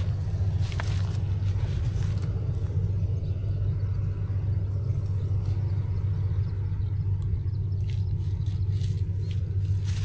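A steady low rumble, with a few faint clicks over it.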